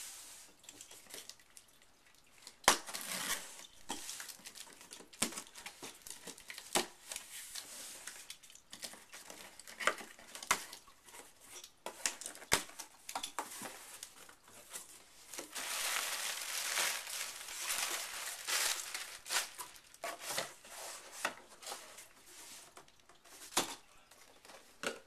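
A phone's retail packaging being handled and opened: plastic and paper crinkling and tearing, with scattered sharp clicks and taps of cardboard, and a longer stretch of crinkling a little past the middle.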